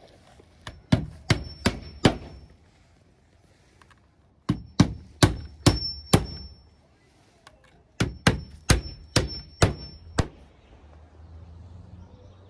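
Hammer driving roofing nails through asphalt starter shingles: three runs of about five or six sharp blows each, a few seconds apart, with a short high ring after some of the blows.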